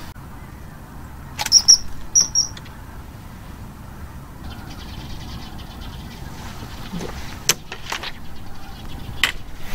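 A few short high bird chirps about two seconds in, over a steady low outdoor background, with scattered sharp clicks and knocks.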